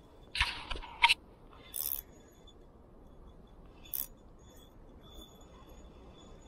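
Short metallic bursts and clicks from a spinning reel as a hooked fish pulls against the bent ultralight rod, the drag giving line in brief spurts. There are several in the first two seconds, the sharpest about a second in, and one more about four seconds in.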